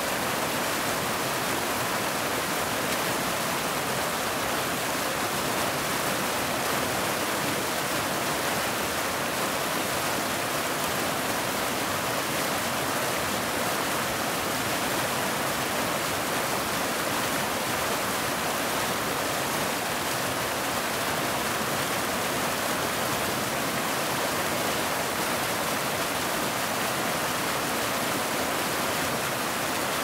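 Waterfall: water falling and rushing in a steady, unbroken hiss-like rush, strongest in the mid range, with no changes or separate sounds.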